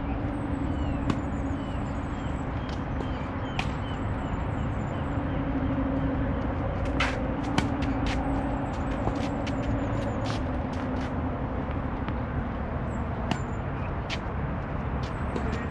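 Tennis balls struck by rackets in a rally on a clay court: sharp pops every couple of seconds, the loudest about a second in, three and a half seconds in and halfway through, with lighter clicks between. A steady low rumble runs underneath.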